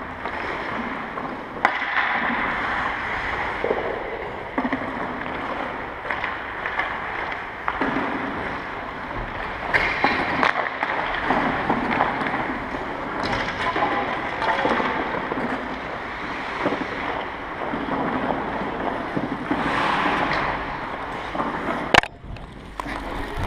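Ice skates scraping and carving on a rink, with the wash of a large echoing hall. There is a sharp knock about a second and a half in and another near the end.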